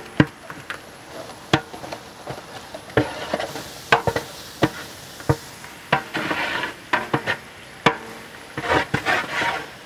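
A long metal paddle stirring in a large aluminium pot and knocking against its sides, with irregular sharp clanks about once a second. Under it, sizzling of onions and ginger-garlic paste frying in ghee and oil.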